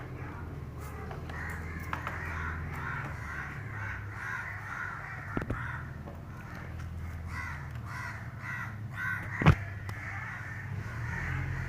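Crows cawing over and over, with a steady low hum underneath. Two sharp clicks cut in, the louder one about nine and a half seconds in.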